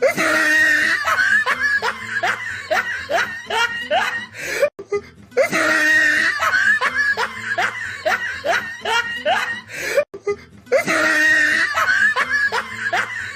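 Evil laugh sound effect: one recorded laugh of a held note breaking into a run of short rising "ha" bursts, about two or three a second. It plays three times back to back with brief breaks between the repeats.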